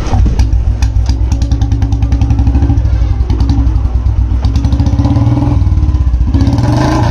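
Royal Enfield Bullet 350 single-cylinder engine idling at low rpm through a very loud exhaust, in rapid even beats, with a brief rev near the end.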